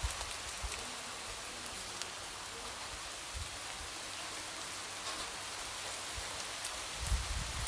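Light rain falling, a steady hiss with scattered drops tapping against a window. A few soft low thumps come near the end.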